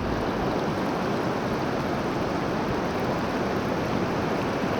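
Steady rush of moving water where a river channel runs out across the beach into the sea, a continuous even noise.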